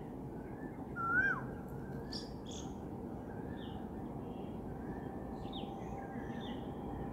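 Birds calling in short, scattered chirps over steady background noise, with one clearer call about a second in that rises and then drops.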